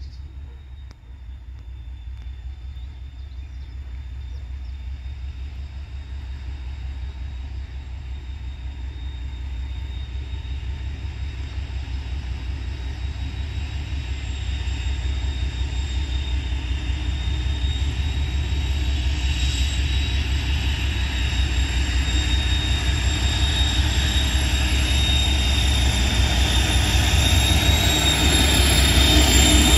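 A TEM2 diesel shunting locomotive approaches under power with a long train of open wagons. Its low, evenly pulsing engine rumble grows steadily louder as it nears. A thin high steady squeal from the wheels rises along with it.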